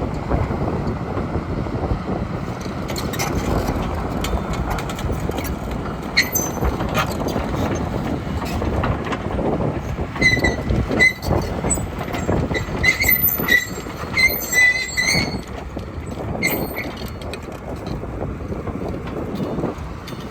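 Kobelco SK170LC hydraulic excavator's 4-cylinder diesel running under load while its steel triple-bar tracks clank and squeal, with a run of sharp squeals and metal clanks in the middle.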